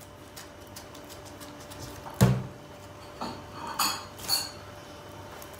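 A sharp knock about two seconds in, then three light ringing clinks of kitchenware, over a faint steady hum.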